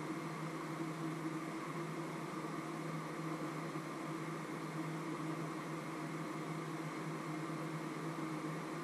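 A steady appliance hum with an even hiss, unchanging throughout.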